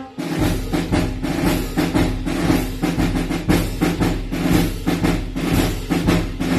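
Concert band percussion playing a march drum break: snare and bass drum beating a steady march rhythm, with low notes held underneath.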